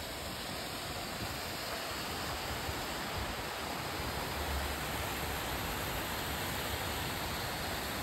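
Steady rushing of a jungle stream running over rocks and small cascades.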